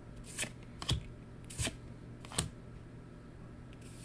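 Trading cards from a freshly opened Weiss Schwarz booster pack being flipped over one at a time, with a sharp card snap about every half second to second and a pause before the last one. A low steady hum runs underneath.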